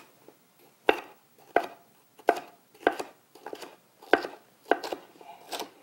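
Kitchen knife slicing red bell pepper into matchsticks on a wooden cutting board: a sharp knock of the blade meeting the board about every two-thirds of a second, about eight strokes in all.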